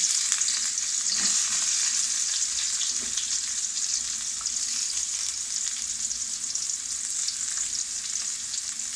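Chopped onions frying in hot oil with fennel seeds, a steady loud sizzle that eases a little as it goes on.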